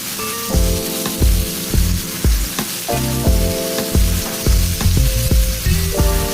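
Background music with a steady beat, about two beats a second, over the constant hiss of food sizzling in hot oil.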